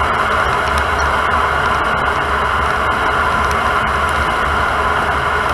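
Steady road and tyre noise with wind rush, picked up from inside the wheel well of a 2008 Lexus IS350 driving on its Tein adjustable coilover suspension: an even rushing noise over a low rumble.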